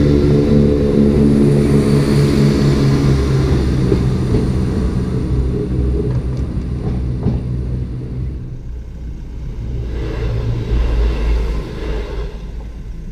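Diesel multiple unit's underfloor engines running under power as the train pulls away, a steady engine drone that fades over several seconds. A low rumble follows near the end.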